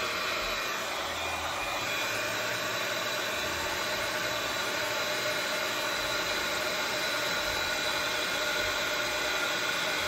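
Heat gun blowing steadily, a rush of air with a faint steady whine, as it is swept over wet poured resin to push the white into foamy wave lacing.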